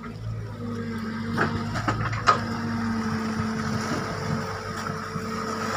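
Sany SY55C mini excavator's diesel engine running steadily under digging load, with a few sharp knocks about one and a half to two and a half seconds in, the loudest just after two seconds.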